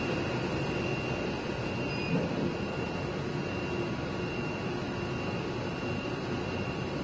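100-watt CO2 laser cutter running as it cuts 50 mm foam at low power and slow feed: a steady hum and whoosh of its machinery, with a faint high tone over it.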